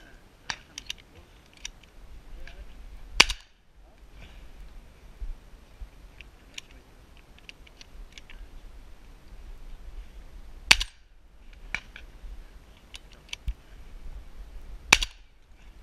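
Three shotgun shots fired at doves, several seconds apart: about three seconds in, near eleven seconds, and near the end. Fainter sharp pops fall in between.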